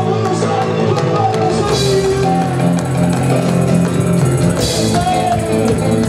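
Live band playing an instrumental passage, with drum kit, bass and guitar, with no vocals.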